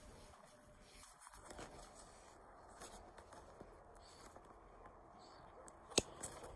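Faint rustling and soft scattered taps of cats moving about on carpet, with one sharp click about six seconds in.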